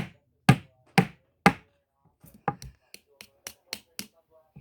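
A run of sharp knocks: four loud ones about half a second apart, then after a short pause lighter, quicker knocks, about four a second.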